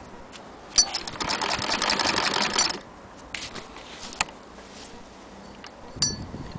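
Antique hand-crank Singer sewing machine stitching: a rapid, even clatter of needle strokes lasting about two seconds, then it stops, leaving a few scattered clicks.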